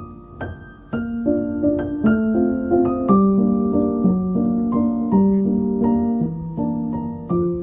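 Background music: a gentle piano melody over soft chords, getting louder about a second in.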